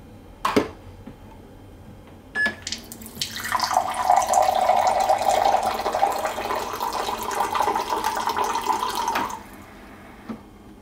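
Inspure countertop water purifier dispensing: a click and a short beep, then about six seconds of water pouring into a glass over ice, stopping abruptly.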